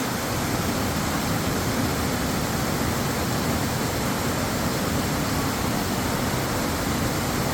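A waterfall: falling water makes a steady, unbroken rushing noise.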